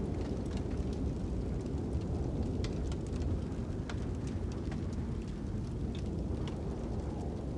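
Steady low rumble of wind with occasional sharp crackles and pops from a burning fire, irregularly spaced.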